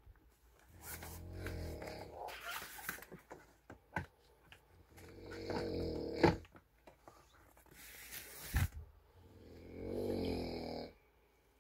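A person snoring: three long rattling snores a few seconds apart, with a couple of short sharp sounds between them.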